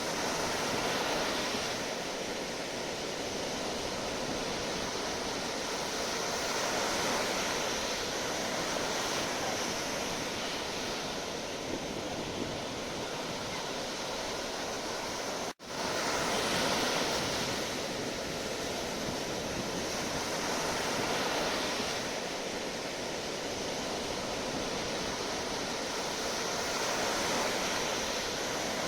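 Sea waves washing onto the shore in a continuous rush that swells and eases every few seconds. About halfway through the sound cuts out for an instant and then comes straight back.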